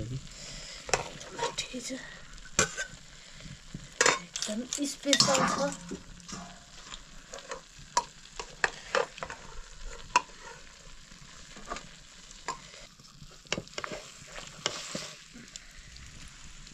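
Mustard greens curry sizzling as it fries in a pan, stirred with a utensil that scrapes and knocks against the pan in irregular clicks. The knocking is loudest and busiest a few seconds in.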